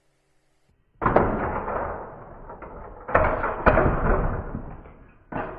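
Slowed-down thumps and clatter of a plastic Toy Story 'Buzz Saves the Train' playset as its spring launcher fires the Buzz Lightyear figure up its post: a deep thud about a second in, two more around three seconds, each trailing off, and another near the end.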